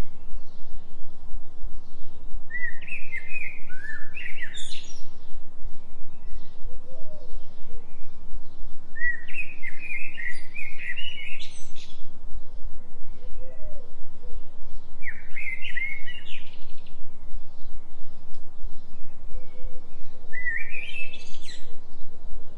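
A songbird singing four phrases of quick, chirping notes about five to six seconds apart, with fainter chirps in between. Under it runs a steady low tone that pulses about three times a second, the 3 Hz delta binaural beat.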